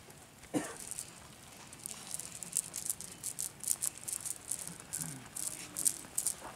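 Cast net shaken over a sack, its weights and the small fish caught in it rattling in quick, uneven shakes, about three to four a second, from about two seconds in. A short falling cry sounds near the start.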